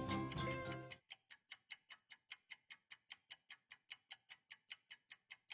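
Music fades out about a second in, leaving a clock ticking faintly, rapidly and evenly.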